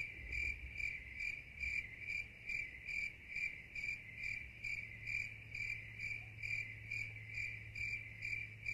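Cricket chirping sound effect: an even run of short, high chirps, about two to three a second, over a faint low hum, starting and stopping abruptly like an inserted clip.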